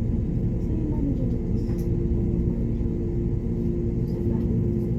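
Airbus A321ceo jet engines running, heard from inside the passenger cabin as a steady low rumble with a constant hum.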